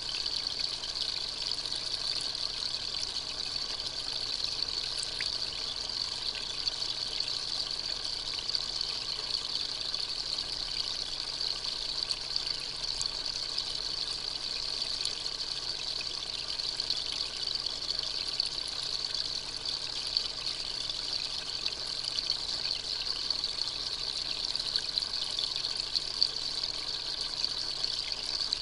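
Steady, even trickling hiss of water, with a few faint ticks scattered through it.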